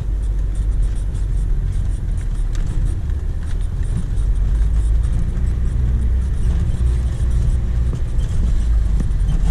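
Four-wheel-drive vehicle running on a rough dirt track, a steady low engine and drivetrain rumble with a few faint knocks.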